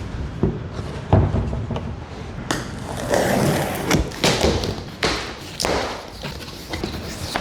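Irregular thumps and taps with short stretches of rustling and scraping, as cardboard boxes and speaker cabinets are handled during unboxing. The heaviest thump comes about a second in.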